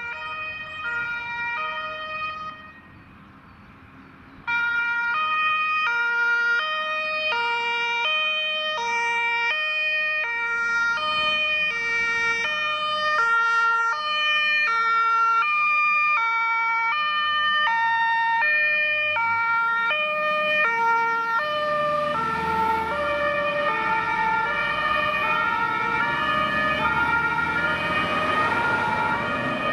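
German two-tone siren (Martinshorn) of an LF 8/6 fire engine on an emergency run, sounding its alternating high–low tones. It breaks off briefly a few seconds in, then resumes. In the second half the tones drop slightly in pitch while engine and road noise rise as the truck goes by.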